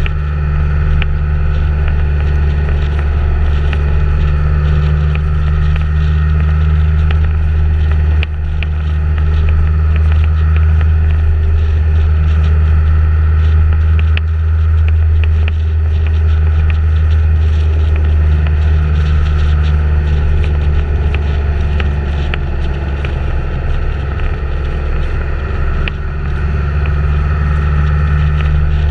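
Motor vehicle engine running steadily at cruising speed, with wind and road noise. The engine drone steps up slightly about eight seconds in.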